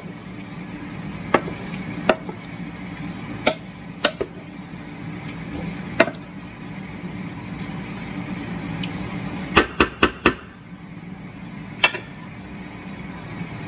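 A wooden spoon stirring a saucy stir-fry in a square nonstick pan, knocking against the pan's sides now and then over a steady low hum. Four quick knocks come in a row about ten seconds in, and there is one more knock just before the spoon is laid on a plate.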